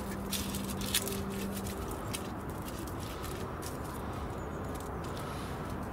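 Hands scratching and rustling in damp soil in a plastic pot while daffodil bulbs, papery skins and all, are pressed in: a scatter of small crackles and clicks, the sharpest about a second in. A low hum sounds under it for the first two seconds.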